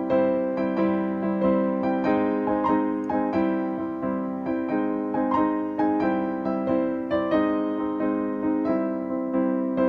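Background music: a gentle piano melody over held notes, a new note struck about every half second.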